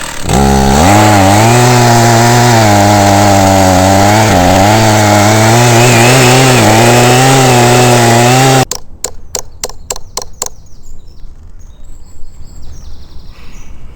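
Chainsaw running at high revs while cutting wood, its engine pitch wavering up and down under the load. A little over halfway through it cuts off suddenly, followed by a quick run of about seven sharp clicks, then faint bird chirps.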